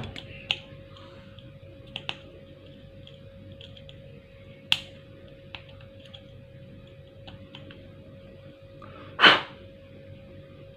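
Flat-head screwdriver tip scraping at a dead SMD LED on the lamp's LED board, heard as scattered small clicks and ticks. There is a louder brief clatter about nine seconds in, over a faint steady hum.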